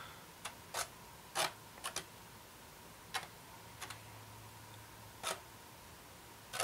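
Thin wooden stick working thick acrylic water gel over a polystyrene base: about ten short, sticky clicks and smacks at irregular intervals, faint.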